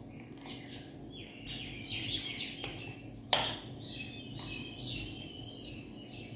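Small birds chirping in short repeated calls, with one sharp metallic clink about halfway through.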